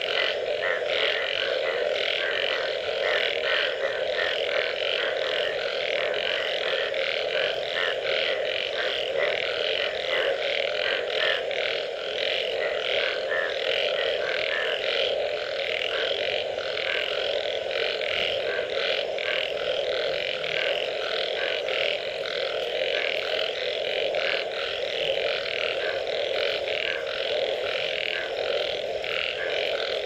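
A dense chorus of frogs calling after rain. A steady drone of many overlapping low croaks runs throughout, with a fast rattle of higher-pitched calls above it.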